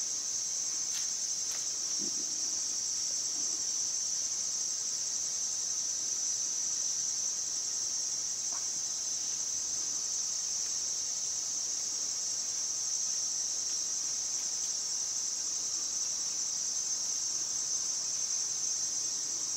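Crickets trilling in a steady, continuous high-pitched chorus.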